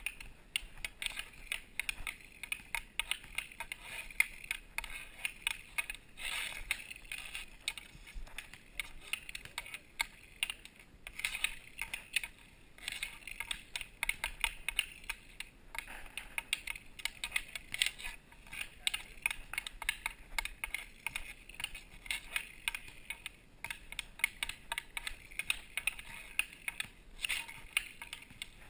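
Hockey stick blade tapping a green biscuit (off-ice plastic puck) back and forth on asphalt while stickhandling: a rapid, uneven run of hard clicks, several a second.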